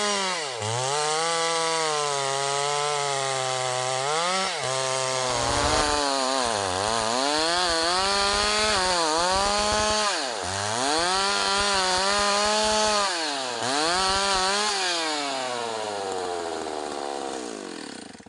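STIHL MS 381 two-stroke chainsaw cutting mahogany, its engine pitch dropping under load and climbing back about five times, then slowing steadily near the end.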